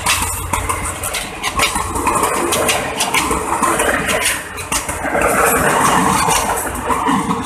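Ex-JR 203 series passenger cars passing at speed close by: steel wheels running and clattering over the track in rapid, irregular clicks under a loud rushing noise.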